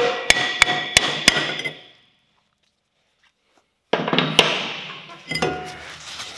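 Hammer blows on a rusted Toyota Corolla rear brake drum to knock it off the axle hub, about three strikes a second, the drum ringing after each. The blows stop about a second and a half in and the ringing fades. After a short silence come a sharp metal knock and clattering.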